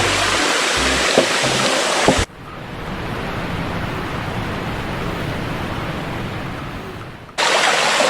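Steady rush of water from a small jungle waterfall and stream. About two seconds in it cuts abruptly to a quieter, duller rush, and it comes back loud near the end.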